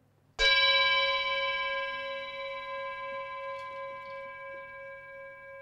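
A metal singing bowl struck once with a mallet, then ringing on with several clear tones at once that fade slowly and waver a little in loudness.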